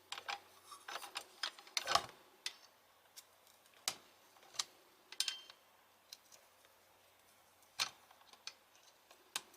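Irregular light clicks and taps, roughly one or two a second, of small metal parts and hand tools being handled while an electric angle grinder's gear head is taken apart.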